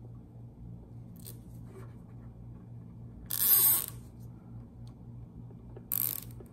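A nylon zip tie is ratcheted tight around a tachometer's pickup wire on the spark plug lead. There are two quick zipping rasps, the first a little past halfway and a shorter one near the end.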